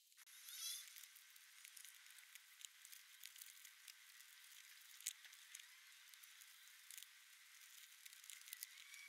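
Faint crinkling and rustling of plastic packaging and bubble wrap being handled, with many small scattered clicks and a slightly louder crinkle just under a second in.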